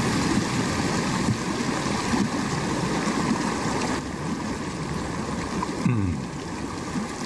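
Steady rushing of a mountain stream, with a few short falling tones over it.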